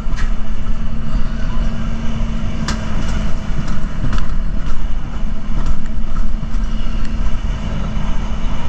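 Alpine coaster cart rolling fast down its rail track: a loud, steady low rumble with a constant hum, broken by a few sharp clacks in the first half.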